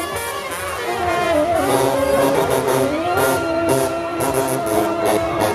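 Live jazz band with horns playing, holding and sliding between notes over drums and cymbals.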